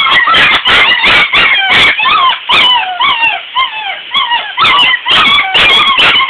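Young puppies whining and yelping over one another in a nonstop stream of short, high-pitched cries that rise and fall in pitch, distressed at being bathed.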